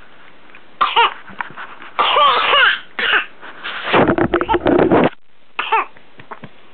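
A coughing fit: harsh coughs in several bursts, with high, squeaky pitched sounds in and between them, the longest burst about four seconds in. The episode is one that the family suspects may be whooping cough.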